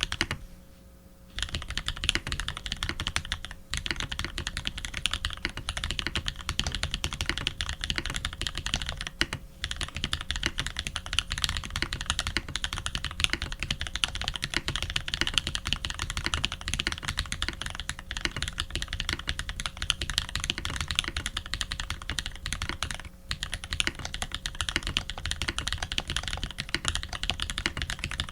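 Fast, continuous typing on a custom Tx87v2 mechanical keyboard with lubed Holy Panda tactile switches, a brass plate and Leopold PBT keycaps. The typing pauses briefly about a second in.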